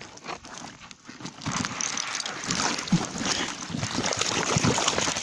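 Wet rustling, dripping and crackling of a fishing net full of crucian carp being handled in a boat, a dense patter of small clicks that grows louder about a second and a half in.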